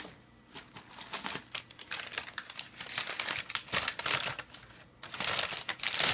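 Packing wrap crinkling and rustling in several bouts of rapid crackles as an item is unwrapped by hand.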